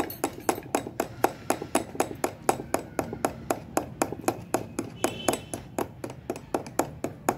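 Metal teaspoon beating frothy coffee in a ceramic mug, clinking against the mug's side in a quick, even rhythm of about five strikes a second.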